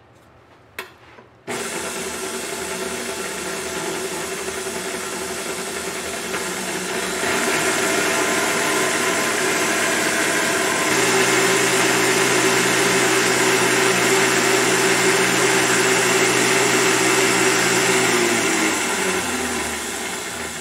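Tilt-head stand mixer with a wire whisk whipping heavy cream in a steel bowl toward peaks. The motor starts about a second and a half in after a light click, steps up in speed twice, runs steadily, then winds down and stops near the end.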